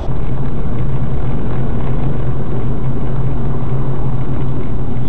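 A vehicle engine running steadily with road noise, with a constant low hum and no impact.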